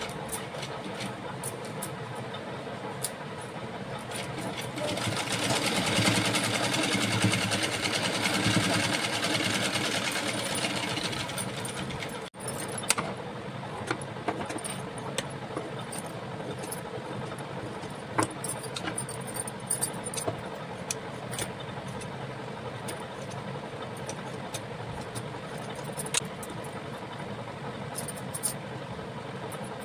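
Hirose sewing machine running and stitching, loudest from about five to eleven seconds in. After an abrupt cut, a steady hum remains with scattered sharp clicks as the fabric is handled and cut.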